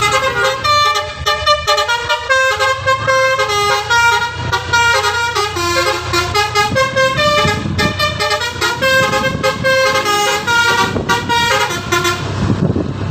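Bus telolet horn, a multi-tone Basuri air horn, playing a quick melody of short stepped notes over the bus engine's steady low running. The horn stops about twelve seconds in.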